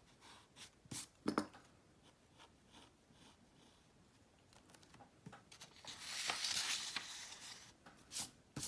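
Mechanical pencil scratching short strokes on drawing paper, with small taps. About six seconds in, the paper sheet rustles and slides for a second or so as it is moved on the table, and a couple of sharp taps follow.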